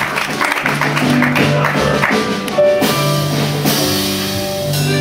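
Instrumental music with guitar and drums, playing held chords and notes.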